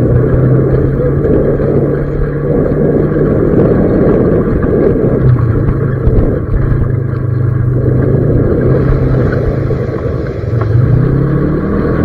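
An off-road vehicle's engine running as it drives over a rough dirt track, a steady drone over the rumble of the ride. The engine note dips briefly about halfway through and climbs near the end as it speeds up.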